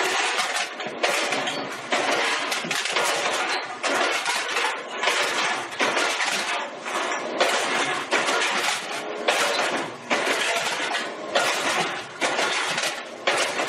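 Can crusher built on a DR flywheel rack-and-pinion log splitter working through a hopper load of cans: a crunch and metal clatter about once a second, each stroke flattening cans.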